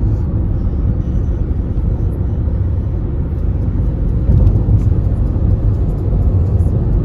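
Steady low rumble of tyre and engine noise inside a car's cabin, driving at motorway speed.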